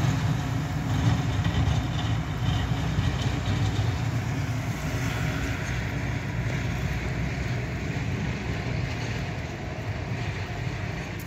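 Tractor engine working a snowplow, a steady low hum that slowly fades.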